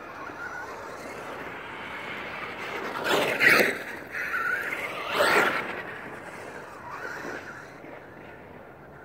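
Traxxas E-Revo electric RC monster truck running on dirt: motor whine and tyre noise build up, then two loud close passes about three and a half and five seconds in, with the whine sweeping in pitch, before it fades away.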